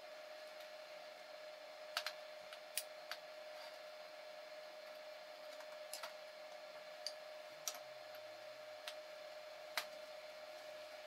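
Cut steel bracket plates clinking and tapping against a steel welding table as they are handled and fitted together, about ten scattered sharp clicks over a steady background hum.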